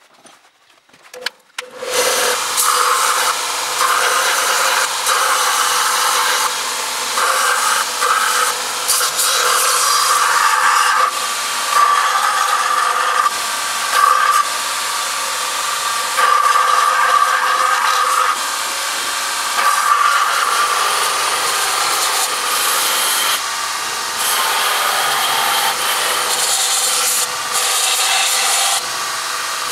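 Steel knife blank being ground on the abrasive belt of a bench grinder's belt-sander attachment: a loud, rasping grind that swells and eases with each pass of the blade. It starts about two seconds in, after a few clicks.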